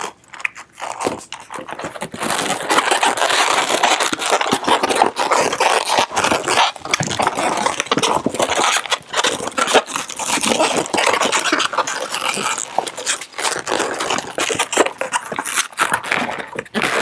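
Inflated latex twisting balloons (260s) rubbing and squeaking against each other as a balloon figure is twisted and handled: a continuous scratchy rubbing that starts about a second in.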